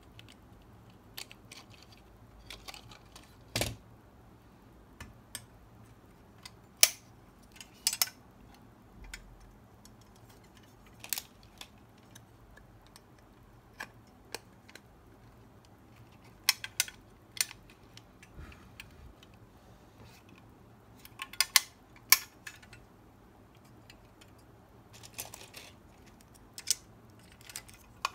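Plastic and die-cast metal parts of a 1:24 scale Maisto Ferrari Enzo model clicking and tapping as they are handled and fitted together. The clicks are sharp and scattered, some single and some in quick clusters, with quiet in between.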